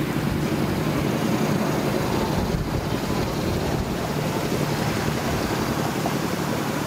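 An engine running steadily, with wind noise on the microphone.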